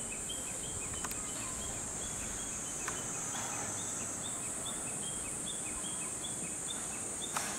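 Outdoor summer ambience: a steady high-pitched insect drone, with a short chirp repeating about twice a second. A few sharp clicks, the loudest near the end.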